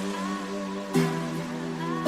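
Background music: sustained electronic synth chords with a gliding lead line, changing chord with an accent about a second in.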